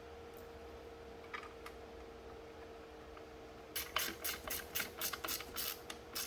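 A quick run of light, sharp mechanical clicks, about five a second, starting a little over halfway through. They sound like hand-tool work on an engine in a garage, over a faint steady hum.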